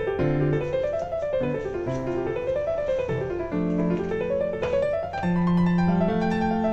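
Background piano music: runs of notes rising and falling over held bass notes.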